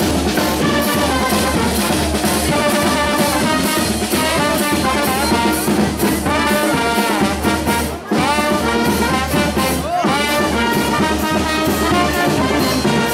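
Charanga street brass band playing a lively tune: trombones and trumpets over a tuba bass line and drums, with a short break in the music about eight seconds in.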